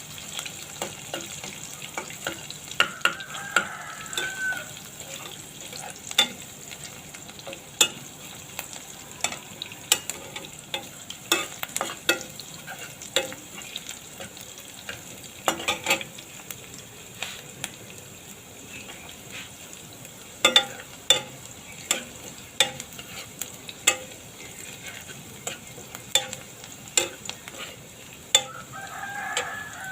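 Food sizzling as it fries in a pan while a utensil stirs it, with frequent sharp clicks and scrapes of the utensil against the pan over a steady hiss.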